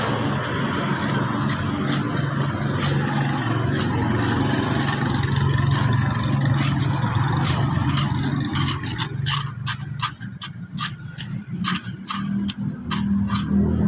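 A motor engine running steadily. It drops away about nine seconds in, leaving a quick run of sharp clicks or taps, and comes back near the end.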